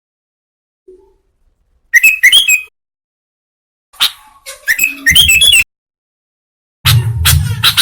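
Sooty-headed bulbul (kutilang) calling in three bursts of quick, bubbly chirping notes with silent gaps between them. This is the noisy, excited calling played as a lure for wild bulbuls. A low rumble runs under the later calls.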